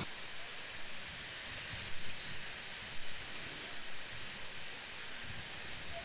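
Steady outdoor background hiss with light, uneven wind buffeting on the microphone and a few soft bumps.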